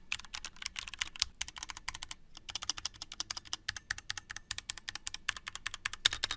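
Fast typing on a mechanical keyboard fitted with GamaKay pre-lubed silent switches: a dense run of soft keystroke clicks, with a brief pause a little over two seconds in.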